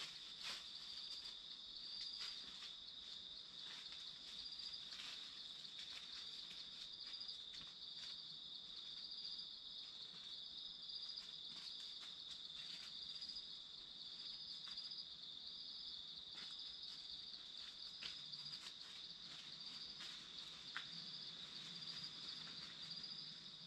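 Faint, steady high-pitched chorus of insects trilling without a break, with faint scattered ticks and crackles.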